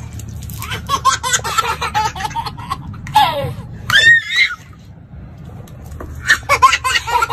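A baby laughing in quick bursts, with a high squeal about four seconds in.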